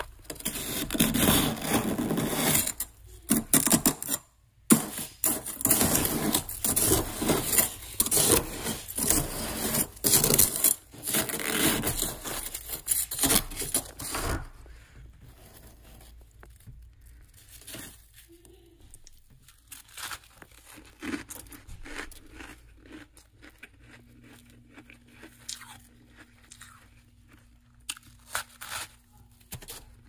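Thick, fluffy freezer frost grown with a humidifier being scraped and dug out with a metal utensil: dense, crunchy scraping for about the first half. Then it turns quieter, with scattered soft crunches as a hand pulls a chunk of frost loose. A faint steady low hum comes in about three quarters of the way through.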